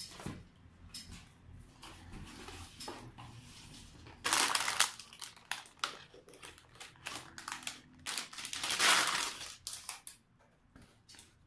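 Rustling and knocking as PC components and their packaging are handled, with scattered light clicks and two louder bursts of rustling, about four and about eight seconds in.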